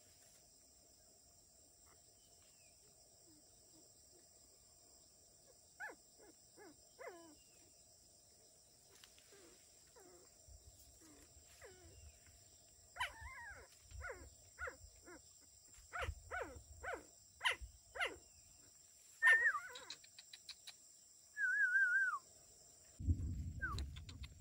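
Dogs yelping and whimpering in short, high, bending yips over a steady insect drone. A few scattered yips come from about six seconds in, then a quick run of yelps in the second half, and a wavering whine near the end. A low rumble joins right at the end.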